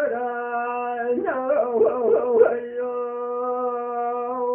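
Kurdish hore singing: a man's voice holds long, steady notes, breaking in the middle into a quick wavering ornament, over a steady drone.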